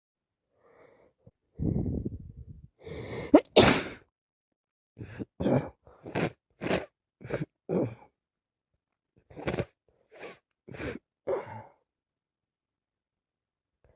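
A woman with a heavy cold sneezing over and over: one loud sneeze about three and a half seconds in, then about ten shorter sneezes in quick succession.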